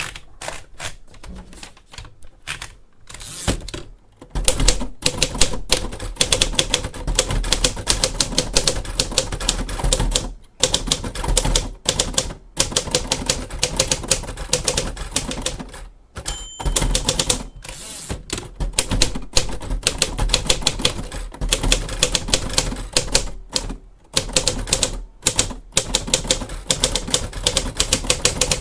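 Pre-war 1940s Royal Aristocrat manual typewriter being typed on: rapid, irregular key strikes with a few short pauses, lighter and sparser for the first few seconds. A short bell-like ring sounds once about two-thirds of the way through, typical of the margin bell near the end of a line.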